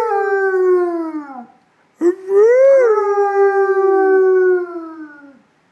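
Dog howling: a howl trails off, falling in pitch, about a second and a half in. A second long howl starts about two seconds in, rises briefly, then holds before falling away near the end.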